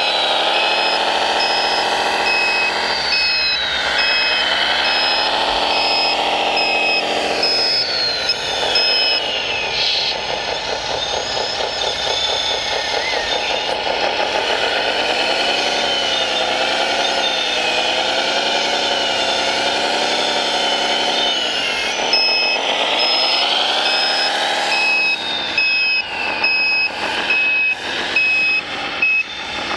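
Radio-controlled heavy-machine model running, its motor whine rising and falling in pitch as it speeds up and slows. A reversing beeper sounds for the first eight seconds or so and again from about 22 seconds in, and a few sharp clicks come near the end.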